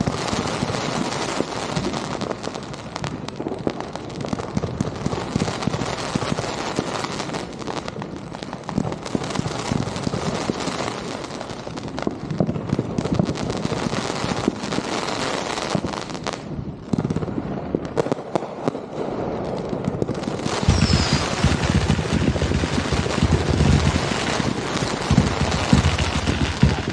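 Fireworks going off in a dense, continuous barrage of rapid crackles and pops. About twenty seconds in, deeper booms join and the barrage gets heavier.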